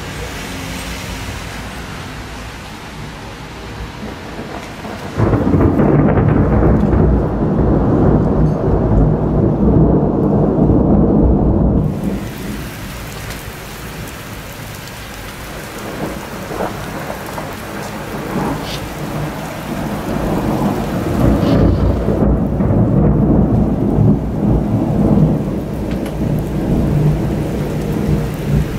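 Thunder rumbling over steady rain. A loud, deep rumble sets in suddenly about five seconds in and dies away some seven seconds later; a second rumble builds more slowly past the middle and fades near the end.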